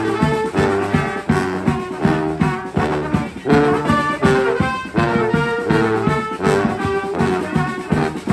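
Brass street band playing, several horns together over a steady percussive beat.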